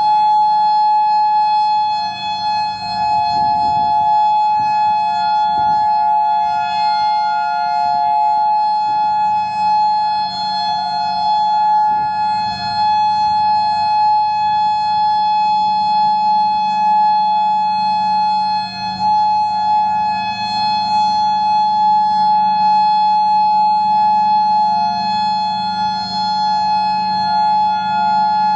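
Outdoor warning sirens sounding a steady alert tone during a siren test, led by the newly installed Federal Signal Modulator 5020B electronic siren, with Federal Signal 2001 sirens heard around it. The main tone holds one pitch, and a second, slightly lower tone swells and fades.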